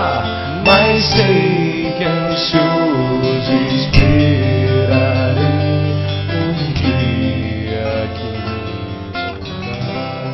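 Soundtrack music led by strummed acoustic guitar, gradually getting quieter toward the end.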